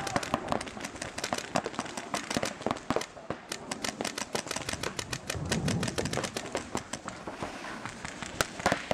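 Paintball markers firing during a speedball game: rapid strings of sharp pops, several a second, from more than one marker overlapping.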